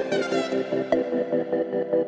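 Electronic background music with a pulsing beat, held synth chords and falling sweeps.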